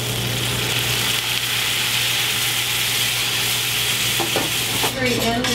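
Stock poured into a hot frying pan of rendered bacon and onions, sizzling with a steady hiss as it boils off in steam.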